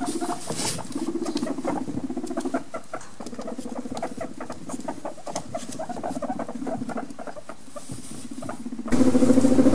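Guinea pig rumble strutting: a low, fast-vibrating rumble that comes in stretches of a second or two, with small ticking sounds over it. A louder, steadier rumble starts abruptly near the end. The sound is used by guinea pigs to show dominance or to court a female.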